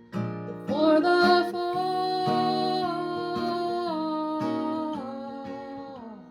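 Acoustic guitar playing under a long wordless sung note that starts about a second in, steps down in pitch a few times and fades just before the end.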